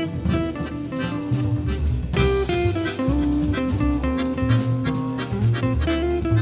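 Background music with guitar and bass, in a jazzy style.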